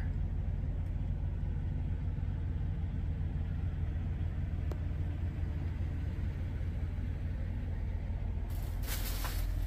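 Semi-truck idling, a steady low rumble heard inside the sleeper cab. Near the end, a rustle of the phone being handled.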